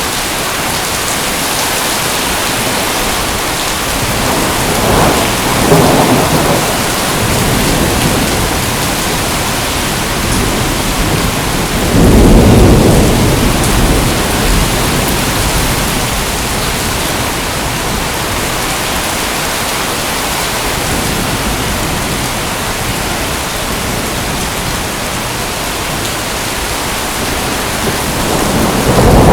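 Steady heavy rain with rolls of thunder: a rumble about five seconds in, a louder one breaking in suddenly about twelve seconds in, and another building near the end.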